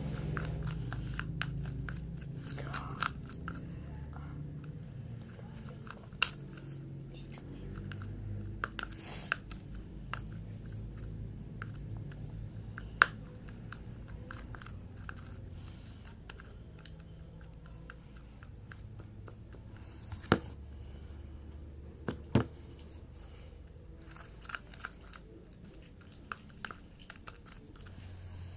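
Glue-and-detergent slime being mixed, with many small sticky clicks and crackles and a few sharper clicks.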